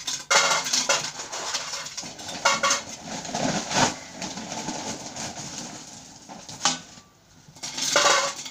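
Small ornamental gravel stones poured by hand into a pot around a metal can, rattling and clattering in irregular spells as they settle.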